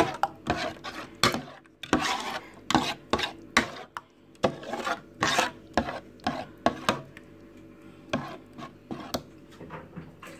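A spoon scraping and stirring thick homemade barbecue sauce in a baking tin, in repeated rasping strokes. The strokes come one or two a second, then thin out and grow softer about seven seconds in.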